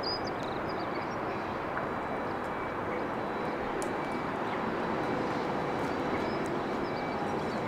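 Steady outdoor rumble of distant vehicles, swelling slightly and easing off, with a few faint bird chirps near the start.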